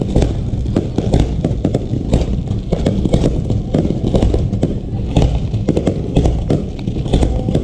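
Fireworks going off in a dense, unbroken barrage of bangs and crackles over a low rumble.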